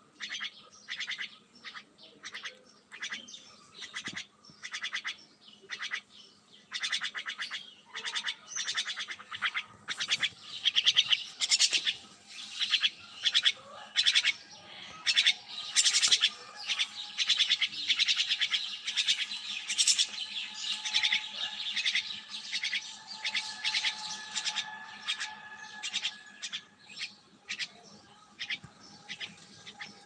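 A young myna calling over and over in short buzzy calls, about one to two a second. The calls come louder and closer together in the middle and thin out towards the end.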